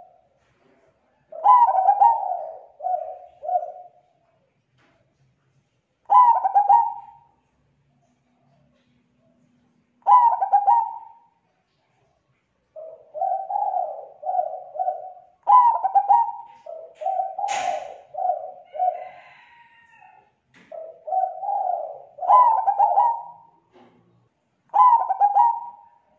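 Zebra dove (perkutut) cooing: repeated phrases of rapid, soft staccato coos, each opening with a louder note and separated by short pauses. A single sharp click about two-thirds of the way in.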